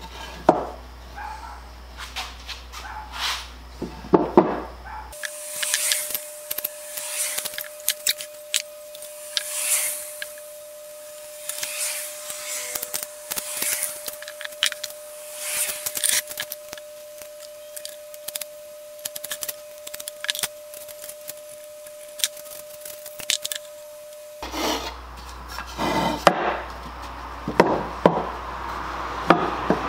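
A hand tool working wood in repeated back-and-forth strokes, a rough rasping rub with each stroke, about one stroke a second.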